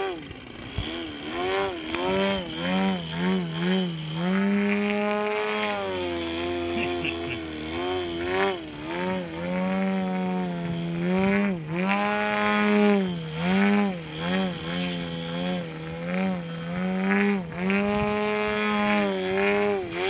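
ZDZ 180 two-stroke gasoline engine with Hype can mufflers on a large RC aerobatic airplane, running hard in flight, its pitch rising and dipping again and again as the throttle is worked through the manoeuvres.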